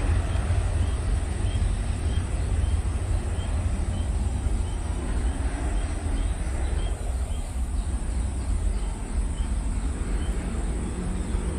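Distant jet engines of a Lion Air Boeing 737 at takeoff power on its takeoff roll: a deep, steady rumble. A bird chirps repeatedly, about twice a second, over the first seven seconds.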